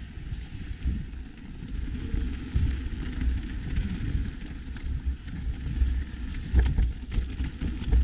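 Mountain bike rolling fast down a dirt trail: a low, rough rumble of tyres and wind buffeting the microphone, with a couple of sharp knocks from the bike over bumps about six and a half seconds in.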